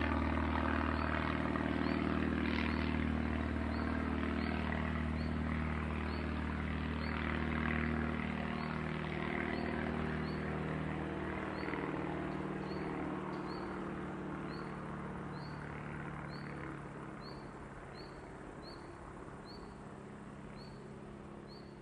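Small propeller plane's engine droning steadily and fading away as it recedes, its lowest hum dropping out partway through. Crickets chirp in a regular rhythm over it, standing out more as the engine dies away.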